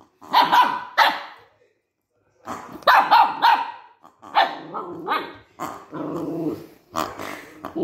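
Small Maltese dog barking in short, sharp clusters with some growling, at a new pink rubber pig toy it is wary of. After a pause of about a second, the barks come fast, with a longer, lower growl later on.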